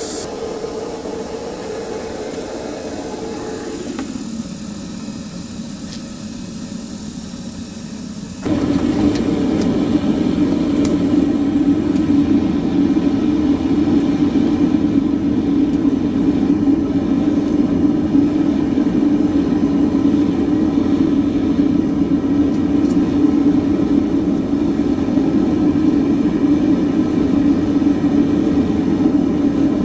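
Gas burner of a small metal-melting furnace running with a steady roar, heating a crucible of aluminum scrap. About eight seconds in it suddenly grows much louder and holds there.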